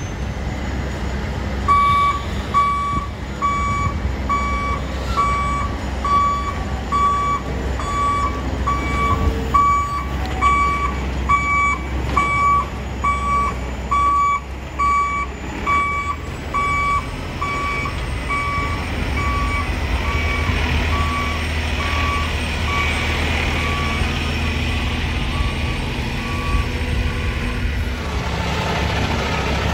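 Heavy vehicle's backup alarm beeping at an even pace, about one and a half beeps a second, over the steady low rumble of diesel truck engines. The beeping starts about two seconds in and stops near the end.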